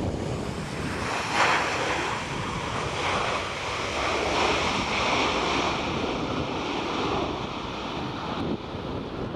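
Airbus A330-343's Rolls-Royce Trent 700 turbofans at taxi power, a steady jet rush and hiss, mixed with wind buffeting the microphone.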